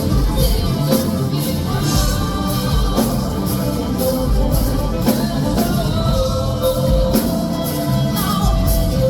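Live pop-rock band playing with a lead vocal over a steady drumbeat.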